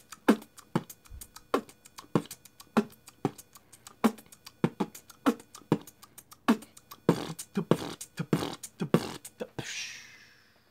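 Beatboxing: a mouth-made beat of kick-drum thumps and snare-like clicks at about two strokes a second, ending near the end in a long falling hiss.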